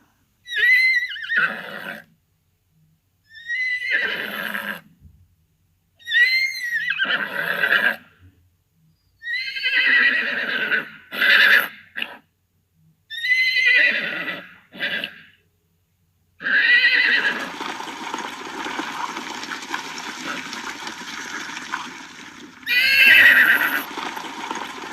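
Horse whinnying over and over: about seven separate neighs, each a loud, high, quavering call lasting one to two seconds, with silent gaps between. From about two-thirds of the way in a steady background hiss runs under the last two neighs.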